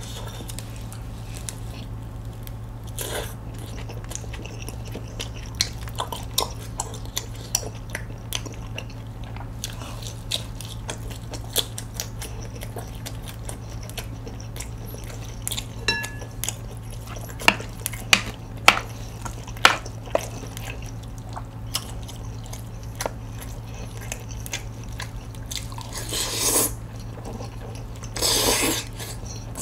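A person chewing and biting into crispy fried dumplings, with scattered crunches and small clicks of utensils on dishes, and two longer, louder slurps near the end, over a steady low hum.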